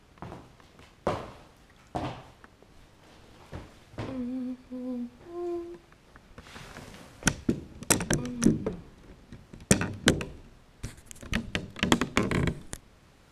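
A woman humming three short "mm" tones, the third higher than the first two. After them comes a run of sharp clicks and knocks close to the microphone that lasts several seconds.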